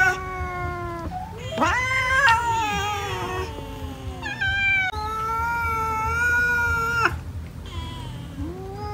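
A crowd of cats meowing, long drawn-out meows overlapping one another, with one long steady meow in the middle. These are hungry cats calling for food.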